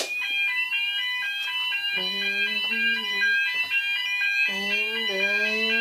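Fire alarm sounders (Roshni and KAC) set off from a manual call point. They come on together with a click and keep up several electronic tones: an alternating two-tone warble over a slowly rising sweep tone.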